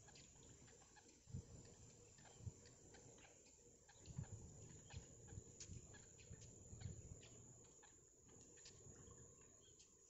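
Near silence: faint outdoor background with a few soft low thumps and scattered faint ticks.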